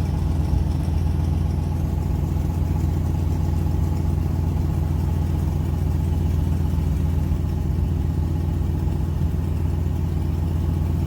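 Steady low rumble of a vehicle's engine and road noise as it drives along at an even pace.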